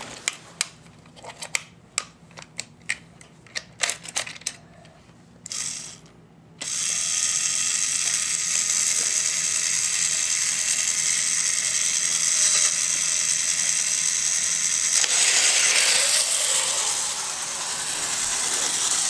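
Sharp plastic clicks and knocks as toy train cars are set back on plastic track, then about six and a half seconds in the Power Trains bullet train's small motor switches on at fast speed and runs with a steady high whirr.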